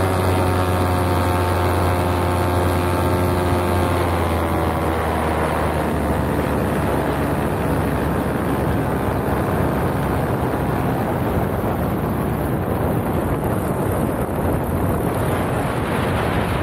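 Paramotor engine and propeller running with a steady drone that drops slightly in pitch and fades out about five seconds in, leaving only wind rushing over the microphone as the wing glides.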